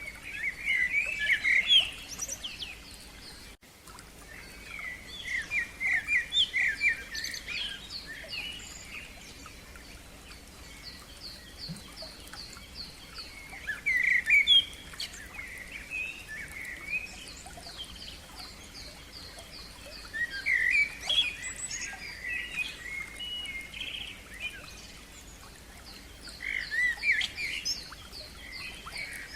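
Songbirds singing in bursts of quick chirped phrases every few seconds, with fast trills of repeated high notes in between, over a faint steady hiss.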